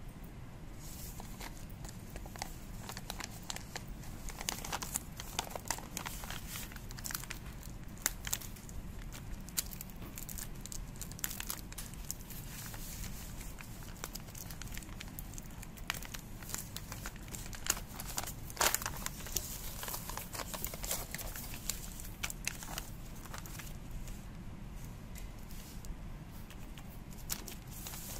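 A paper envelope and the clear plastic wrapping of small keychains being handled and unfolded by hand: irregular rustling and crinkling with sharp crackles throughout.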